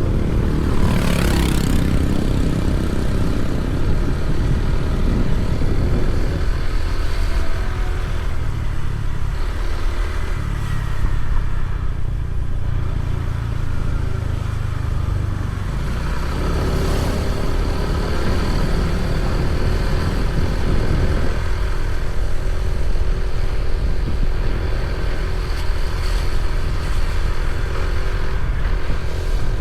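A vehicle engine running steadily while on the move, with heavy low rumble. Another vehicle passes about a second in and again around seventeen seconds.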